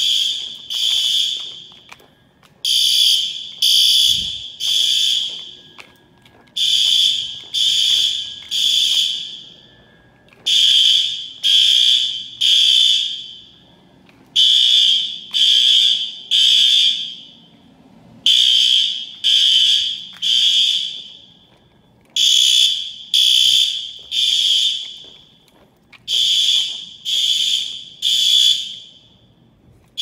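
System Sensor SpectrAlert Advance fire alarm horns sounding the temporal-3 pattern, the standard evacuation signal: three short high-pitched blasts, a pause, then repeat about every four seconds. The blasts echo along the school corridors after each group of three.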